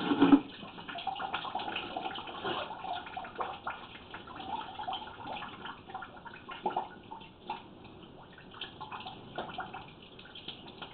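Water trickling and gurgling in a drain pipe, with small irregular splashes.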